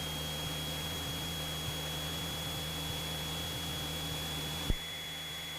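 Steady engine drone and hiss inside a Cessna 172's cabin, with a thin high whine over it. A single click comes about four and a half seconds in, after which the low hum is quieter.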